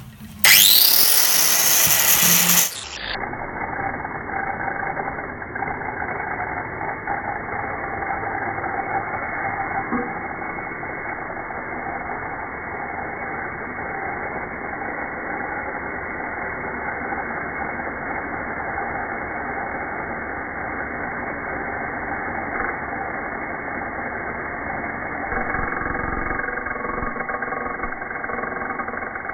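Angle grinder switched on, its whine rising as the disc spins up. The sound then drops to a slowed-down, deep, steady drone as the footage goes into slow motion, getting louder near the end as the cutting disc bites into a steel radiator pipe.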